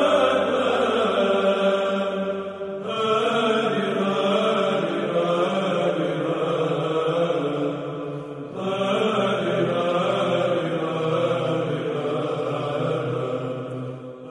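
Byzantine chant: voices singing long, held melodic phrases, with short breaks between phrases about three and eight and a half seconds in.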